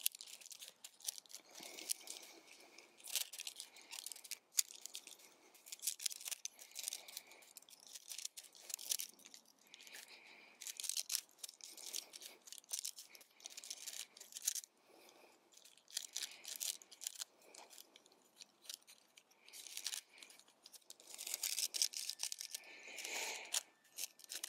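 Shock-corded aluminium tent pole sections being pulled apart and folded together: irregular light clicks and clinks of the pole joints, with some rustling, in short bursts.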